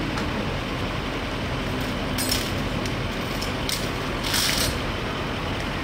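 Steady street background noise, with three short high, hissy sounds: about two seconds in, again near the middle, and the loudest about four and a half seconds in.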